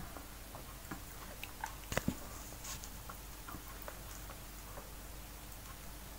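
Close-miked eating sounds: scattered small clicks and ticks of fingers picking apart a steamed fish and of the mouth, with a sharper knock about two seconds in as the aluminium drink can is set down.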